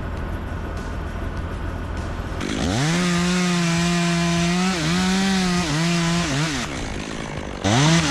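Two-stroke chainsaw idling, then revved to full throttle about two and a half seconds in and held while cutting, with a few brief dips, before dropping back near seven seconds. It is revved sharply again just before the end.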